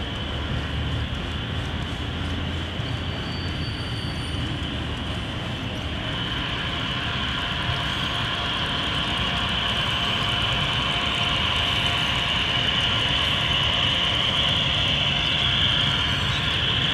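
HO-scale model train running on the layout: a steady rolling sound with a high hiss that grows louder from about halfway through.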